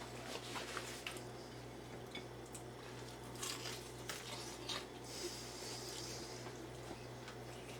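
Faint sounds of someone eating fried chicken: scattered small clicks and soft wet chewing noises over a steady low hum.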